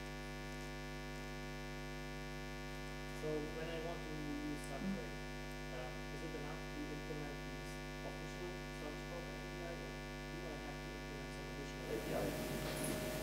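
Steady electrical mains hum in the sound system. Over it, a faint, distant voice speaks in broken phrases from about three seconds in: an audience member asking a question away from the microphone.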